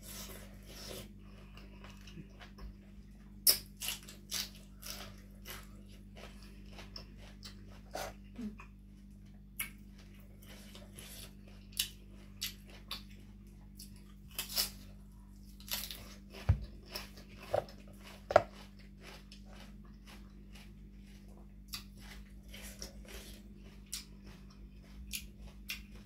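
A person chewing and biting food close to the microphone, with irregular sharp crunches and mouth clicks throughout, over a steady low hum.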